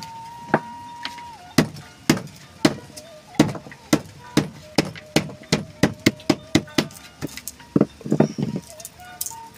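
Repeated sharp knocks on a wooden surface, about two to three a second, from spices being chopped and bruised by hand: fresh turmeric and lemongrass for a yellow spice paste.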